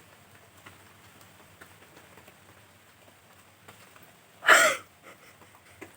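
One short, loud, forceful burst of breath from a woman trying to make herself sneeze, about four and a half seconds in; it falls short of a full sneeze.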